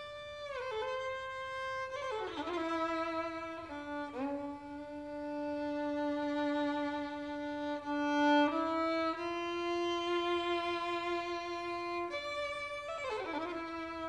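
Solo violin playing a slow melody of long bowed notes, sliding down into new notes several times, with vibrato on some of the held notes.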